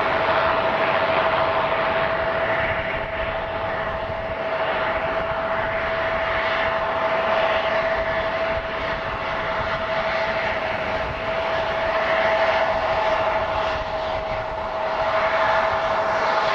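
Jet airliner engines running with a steady whine over a rushing noise that swells and fades every few seconds.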